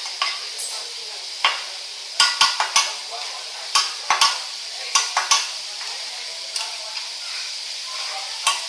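Food sizzling on a teppanyaki griddle, a steady hiss, with about a dozen sharp metal clacks of cooking utensils striking the griddle, bunched in quick runs in the middle and one more near the end.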